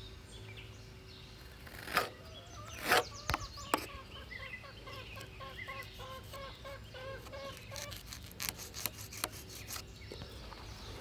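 Chickens clucking, a quick run of short clucks in the middle, with a few sharp taps and knocks before it.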